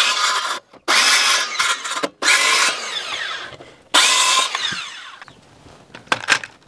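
Makita cordless circular saw trimming the overhanging ends of wooden ladder rungs flush: four short cuts, the motor whining up for each and falling in pitch as it winds down after the trigger is released. A few light clicks near the end.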